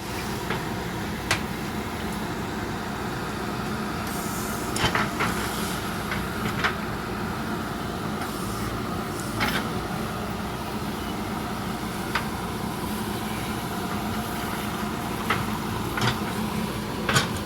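JCB 3DX backhoe loader's diesel engine running steadily, with sharp metallic knocks every few seconds as the machine works.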